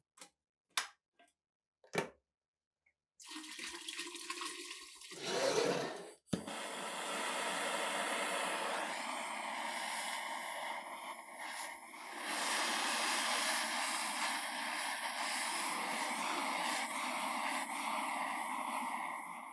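A few light clicks, then a handheld gas torch hissing steadily as its blue flame heats rusted steel gun parts. The hiss swells briefly and breaks off for a moment about six seconds in, then holds steady.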